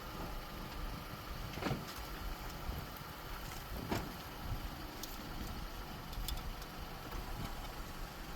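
A car engine idling steadily, the donor car charging the dead battery through jumper cables, with two sharp knocks about two seconds apart. The dead car does not start.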